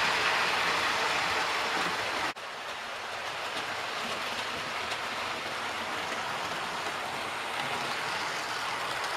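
Model railway trains running on the layout's track, a steady whirr and rattle of wheels and motors. The sound drops out for an instant about two seconds in and carries on a little quieter.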